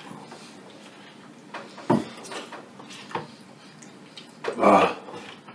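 Spoons clinking and scraping against bowls as two people eat beans: scattered light clicks, one sharper about two seconds in, and a louder half-second noise about four and a half seconds in.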